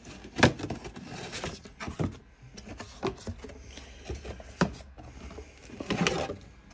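Cardboard box being opened by hand and a headlight unit lifted out of it: cardboard flaps scraping and rustling, with a string of sharp knocks and clicks, the loudest about half a second in.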